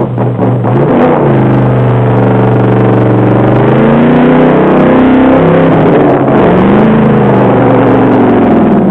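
Loud engine sound effect, revving: a steady running note whose pitch swings up and down a couple of times in the second half, starting and cutting off abruptly.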